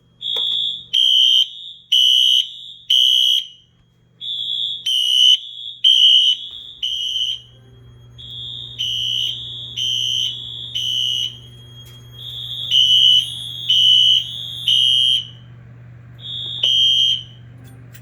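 Two fire alarm horns, a Wheelock HSR and a Wheelock MT, sound the code-3 temporal pattern of three short beeps and a pause. They are at two slightly different pitches and out of step with each other. A low steady hum comes in about seven seconds in.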